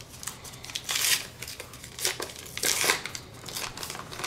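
Foil wrapper of a 1989 Upper Deck baseball card pack being torn open by hand, crinkling in several short bursts.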